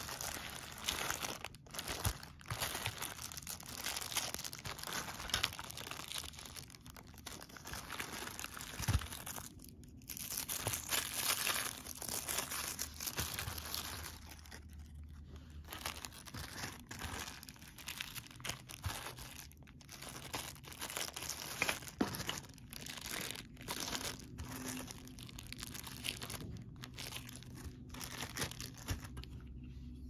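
Clear plastic bags crinkling and rustling as they are handled, in irregular stretches with short pauses.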